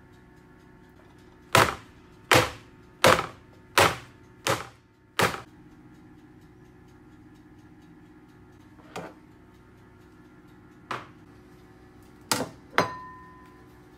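A square metal cake pan of sponge batter knocked down onto the counter six times in an even rhythm, about two-thirds of a second apart, the usual way to drive air bubbles out before baking. Later come two lighter knocks, and near the end a plate set down with a short ringing note.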